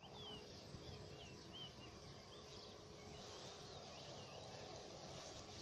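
Faint outdoor ambience: small birds chirping short rising and falling notes, most of them in the first two seconds, over a low rumbling hiss.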